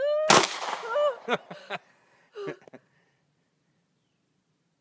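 A single 9mm pistol shot, a sharp loud crack about a third of a second in. A woman's high-pitched exclamation rises into it and carries on briefly after.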